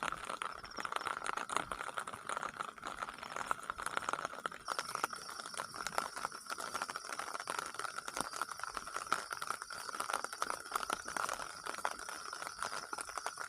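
Irregular patter of raindrops dripping onto a shelter, with a steady high chirring of insects behind it.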